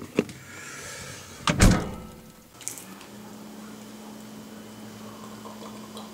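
Knocks and rustles of a handheld camera being moved and bumped close up, with the loudest thump about a second and a half in and a short hiss just before three seconds. After that a steady low hum runs on.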